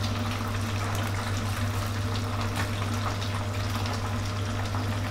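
Chicken wings deep-frying in hot oil in a wok: a steady sizzle and bubbling, with a constant low hum underneath. The gas is turned up to full heat for the final crisping stage, which drives the oil out of the wings.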